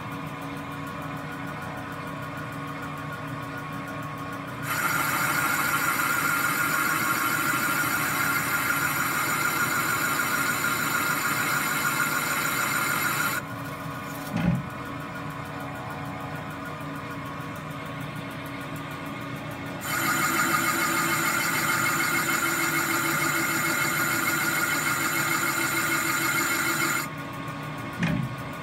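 Metal lathe turning a BMW N54 turbo's cast aluminium compressor housing, its boring tool cutting the bore. Under a steady machine hum, the cut comes in as a louder, higher cutting sound about five seconds in and runs for about eight seconds. It stops, and a second pass of about seven seconds follows. A short knock falls between the passes and another near the end.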